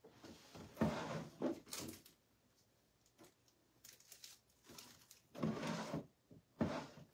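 Someone rummaging through nail-art supplies: small objects knocked and shuffled in short bursts about a second in and again near the end, with a quiet gap between.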